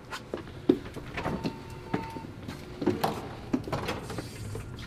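Scattered light knocks and clicks of someone handling papers and going out through an office door.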